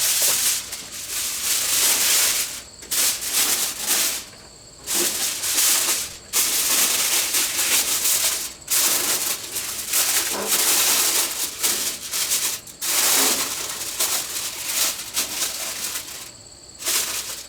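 Aluminium foil being crinkled and smoothed onto a grill grate: a dry, crackling rustle in long stretches with several short pauses.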